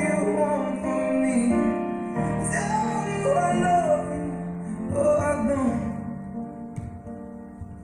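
A song playing: a singing voice in slow, gliding phrases over sustained instrumental chords, getting quieter toward the end.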